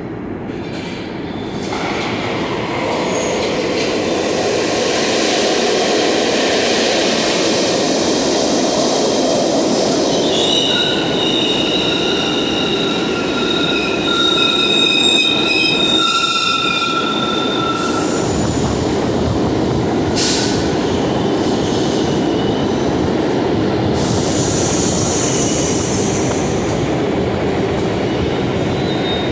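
An R62A subway train on the 6 local runs into the station with a loud, steady rumble. Its wheels squeal in high tones for several seconds midway as it brakes. After it stops, air hisses for a couple of seconds.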